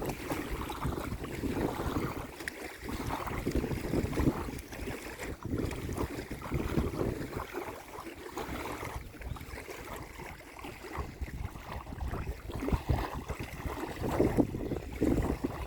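Small waves on a lake lapping and splashing in an uneven rhythm, with wind rumbling on the microphone.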